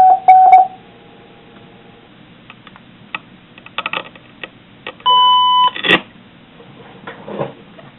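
Amateur radio repeater beeps heard through a receiver: two short, loud beeps right at the start, then about five seconds in a steady two-tone beep lasting about half a second, ending in a sharp click. Faint static crackles and clicks come in between, with no one answering on the frequency.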